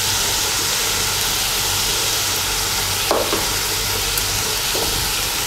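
Strips of bottle-gourd peel and raw potato sizzling in hot oil in a kadai: a steady frying hiss.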